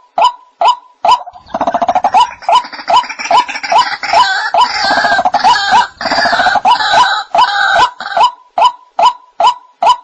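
White-breasted waterhen calling, a recording played as a hunting lure: a steady series of short notes, two or three a second, breaks after about a second into a dense stretch of overlapping, rougher calls, then returns to the steady notes near the end.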